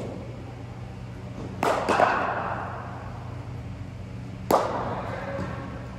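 Sharp knocks of a cricket ball in an echoing indoor hall: a quick cluster of three impacts about a second and a half in, then a single one about four and a half seconds in, each leaving a ringing echo.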